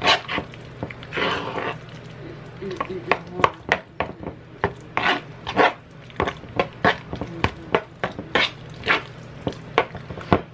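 Metal fork stirring and mashing guacamole in a plastic molcajete-style bowl: irregular clicks and short scrapes as the fork strikes and drags against the bowl.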